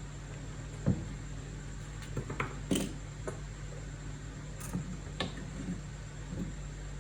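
A few scattered light clicks and knocks, with one sharper click just under three seconds in, over a steady low hum.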